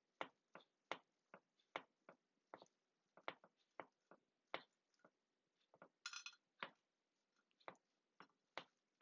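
Faint, irregular light taps and clicks, about two a second, of food and gloved fingers against a glass baking dish as rosemary sprigs and pepper rings are laid in, with a short brighter rattle about six seconds in.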